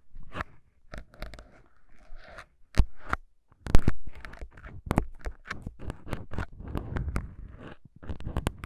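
Two plastic syringes with fine needles handled right at the microphones, making an irregular run of crisp clicks, snaps and scratchy crackles with a short lull near the middle.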